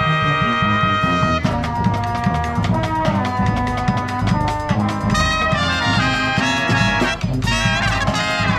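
Brass marching band playing live, with trumpets, trombones and sousaphones. A held brass chord gives way about a second and a half in to an upbeat tune over a bouncing bass line and a steady drum beat.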